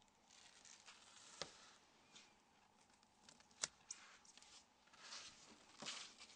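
Near silence with a few faint small clicks and light scrapes, as of a pry tool working on a phone's display flex connector.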